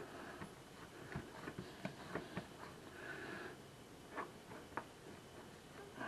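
Faint scattered taps and soft rubbing as hands press and stretch pizza crust dough across a greased metal sheet pan, with fingers now and then knocking lightly on the pan.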